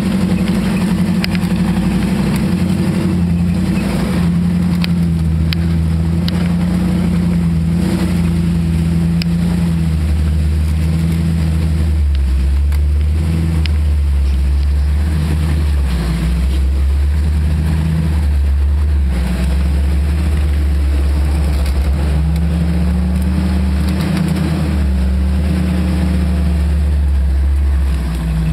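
Engine of an off-road 4x4 running at low speed, heard from inside its cab, with a deep steady hum and an engine note that rises and falls with the throttle, most clearly a little after twenty seconds in.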